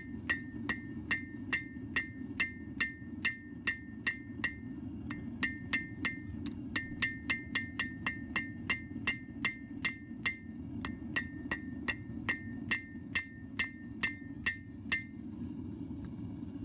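Hand hammer striking hot mild steel on an anvil, about two blows a second, each with a bright ring. There is a short pause about five seconds in, and the blows stop near the end. Under it runs the steady rush of a propane forge burner.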